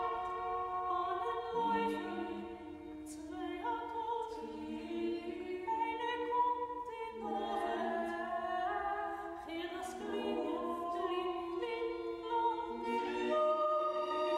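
Slow choral music: voices singing long, held chords that shift every second or two.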